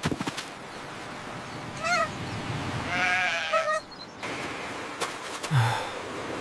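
Cartoon sheep bleating: a short call about two seconds in, then a longer, quavering bleat about a second later. A short low sound follows near the end.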